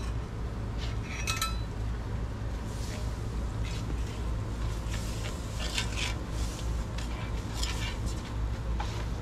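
A metal spatula scraping and clinking against a hot griddle pan as melted spread is pushed across it, in a few short scrapes and clinks over a steady low hum.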